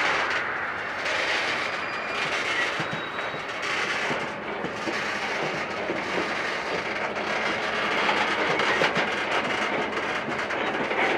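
Tank cars of a freight train rolling slowly past at close range, a steady rumble of steel wheels on rail with scattered clicks from the wheels crossing rail joints.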